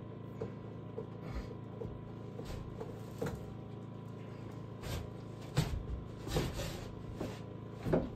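A run of irregular knocks and clatters, a few light ones at first, then louder and closer together in the second half, the loudest near the end, over a steady low hum.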